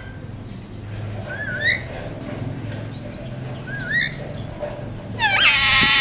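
Alexandrine parakeets calling: two short rising calls, then a loud, longer call near the end.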